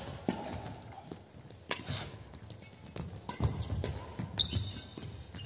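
Badminton rackets striking a shuttlecock in a doubles rally: sharp hits about every second or so, with the thud of players' feet moving on the court between them.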